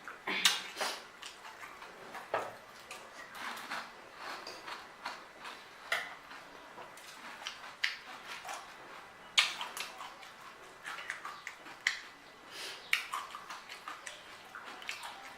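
Close-up eating sounds of pani puri: the crisp fried puri shells crunching and being chewed, with wet mouth sounds from the spiced water, in irregular sharp crunches spread through the whole stretch.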